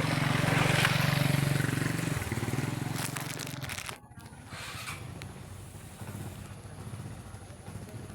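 Small petrol engine driving a homemade oil-palm fruitlet thresher, running steadily, then dropping to a slower, quieter, rougher run about two seconds in.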